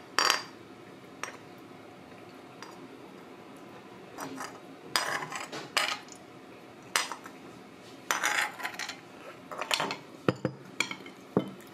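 Scattered clinks and knocks of a ceramic ramen bowl with chopsticks and a spoon, a dozen or so short sharp sounds with quiet gaps between them; the bowl is brought back down toward the wooden table near the end.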